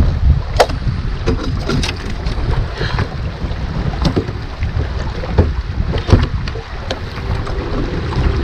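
Wind buffeting the microphone in a steady low rumble, with several sharp knocks from handling and movement on the boat.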